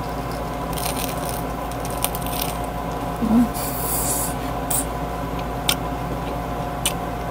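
An air conditioner hums steadily inside a car, with two steady tones in it. Over it come intermittent rustling and scraping, including a longer hissy rustle about four seconds in, and a few sharp clicks in the second half.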